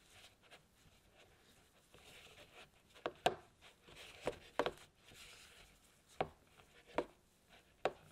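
Spatula scraping and pressing crumbly cookie dough against the sides of a bowl, mashing flour into creamed butter. From about three seconds in, about seven sharp knocks as the spatula strikes the bowl.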